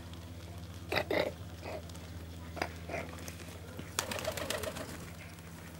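Flock of domestic pigeons feeding: a few short coos and calls, with scattered sharp taps as they peck at the ground. A steady low hum runs underneath.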